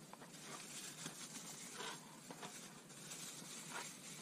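Faint rustling and crinkling of plastic bags and packaging being handled, with small clicks, in short scattered bursts; a couple of louder crinkles come about two seconds in and near the end.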